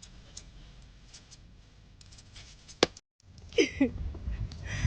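Quiet background with a few faint clicks and one sharp click, then an abrupt cut to a moment of dead silence. After it come a low rumble and a brief snatch of a voice.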